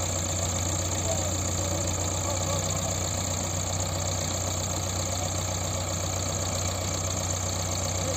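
Diesel engine of a JCB 3DX backhoe loader running steadily with an even low hum.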